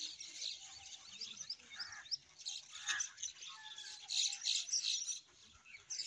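A flock of birds at their nesting colony chirping and chattering all together: a dense stream of short, high calls with a few lower notes mixed in, thinning out briefly near the end.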